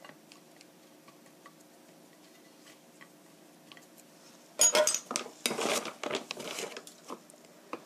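Soft ticks of fingers handling flour-dusted green chili pepper halves on a ceramic plate. About four and a half seconds in comes a loud clatter of dishes and utensils, with about two seconds of rattling that dies away before the end.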